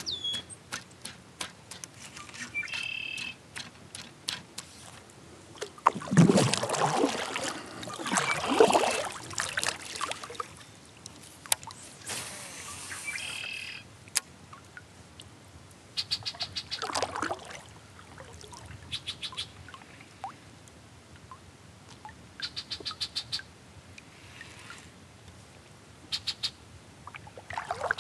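Birds calling around a lake shore: short, high chirping calls and quick trilled runs of notes, repeated at intervals, with scattered light clicks. A louder, noisy stretch about six to ten seconds in stands out above the calls.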